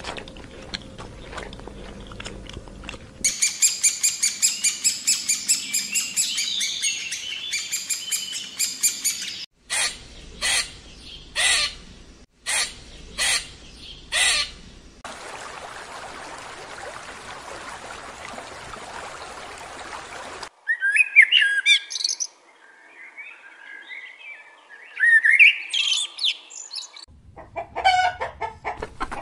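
A series of separate animal recordings: rapid high-pitched bird chirping, then six short loud calls, a stretch of steady hiss, then sweeping bird calls. Near the end come quick repeated clucks from a chicken.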